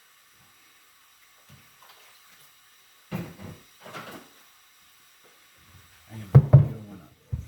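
Kitchen handling sounds: a couple of short knocks and rattles, then a louder clatter near the end and one sharp knock just before it ends.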